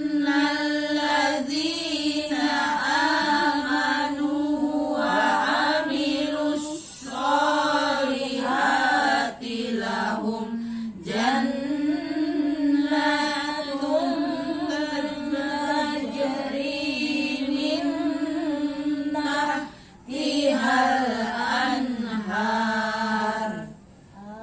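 A woman's voice reciting the Quran in a slow, melodic chant, drawing out long wavering notes, with a few brief pauses.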